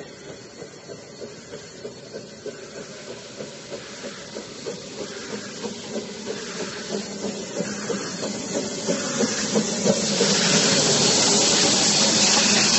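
Steam locomotive working with an even beat of about two pulses a second that grows louder and slightly quicker. A loud, steady steam hiss takes over about ten seconds in.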